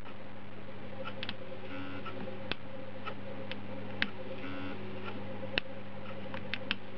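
Stepper-motor idle air control valve powered up by its ECU, giving faint irregular ticks and clicks as it drives out against its stop to find its home position and returns to its cranking position. A steady low hum runs underneath.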